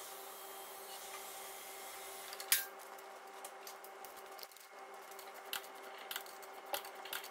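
Quiet workshop background: a steady hum with one sharp click about two and a half seconds in and a few lighter metallic clicks and taps near the end.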